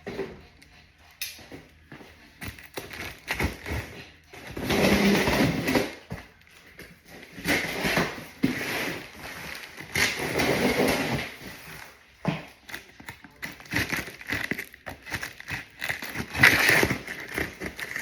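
Handling noise: three long stretches of rustling or scraping, with scattered knocks and clicks, densest near the end, as parts are moved and handled.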